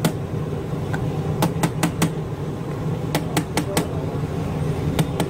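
Metal spatula knocking and scraping against a steel steamer tray while khaman dhokla is scooped out, giving sharp metallic clicks in quick runs of about four, roughly every second and a half. A steady low hum runs underneath.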